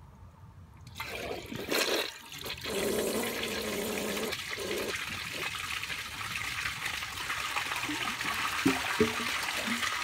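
1991 Briggs Conserver toilet flushing on a reduced 1.5 gallons per flush: about a second in the flush starts and water rushes steadily into the bowl and swirls down the drain.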